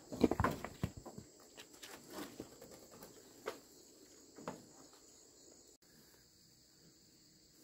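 Plank door of a wooden shed knocking and rattling as it is pulled open, a quick cluster of knocks in the first second, then a few single knocks and steps. Insects chirr steadily throughout.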